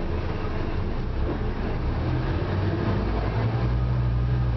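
Scania Omnicity single-deck bus running, heard from a passenger seat inside: a steady engine drone with road and body noise. About three and a half seconds in, the engine's low hum grows stronger.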